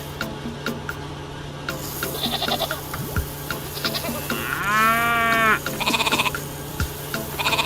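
A farm animal bleating in one drawn-out call about halfway through, with shorter calls around it. Under it runs a steady low hum with regular light ticks.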